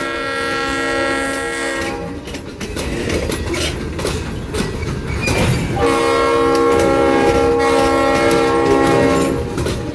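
Aberdeen & Rockfish No. 400's Leslie RS-5T multi-chime air horn sounding two long blasts, one ending about two seconds in and the next starting about six seconds in. Between them the passing train's wheels clatter and click over the rail joints.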